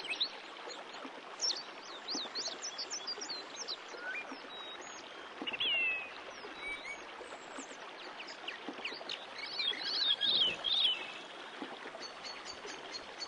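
Many birds chirping and calling over a steady background hiss, with a busier flurry of calls about ten seconds in.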